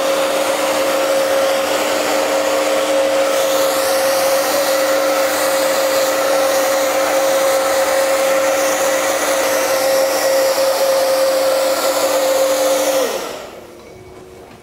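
Hand-held hair dryer blowing on hair: a loud steady rush of air with a steady motor whine, then switched off about 13 seconds in, its motor winding down.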